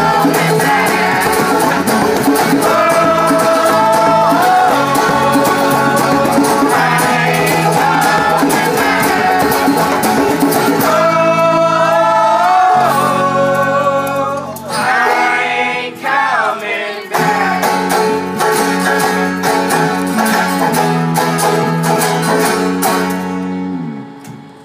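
Folk punk band playing acoustically: strummed acoustic guitars and banjo with a djembe and bass underneath, several voices singing together. The playing thins briefly about two-thirds of the way through, and the song ends right at the close.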